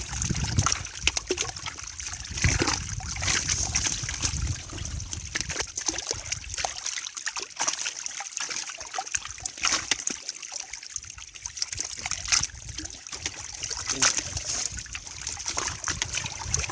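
Pond water splashing and trickling in many irregular small splashes as a fishing net is worked through it.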